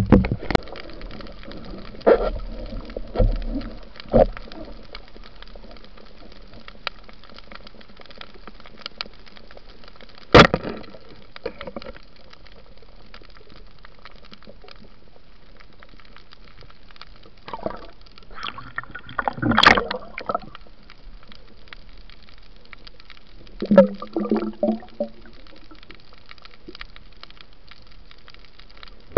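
Underwater sound picked up by a camera in a waterproof housing: a steady water hiss broken by sharp knocks, with bursts of gurgling bubbles near the middle and again later on.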